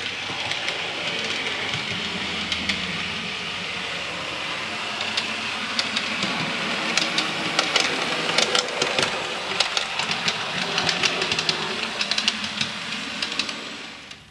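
A train running past: a steady running noise with rapid clicking of wheels over the rails, busiest in the second half, fading away near the end.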